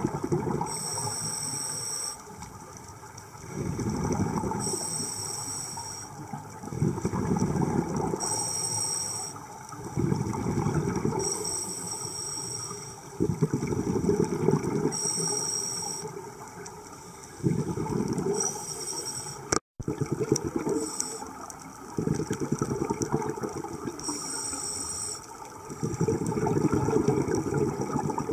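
Scuba diver's regulator breathing heard underwater: a rumbling burst of exhaled bubbles every three to four seconds, alternating with the hiss of each inhale through the regulator. The sound cuts out for a moment about two-thirds of the way through.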